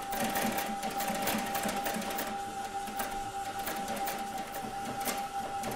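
Old industrial sewing machine stitching leather, running steadily with a fast, even clatter of needle strokes over a steady motor hum.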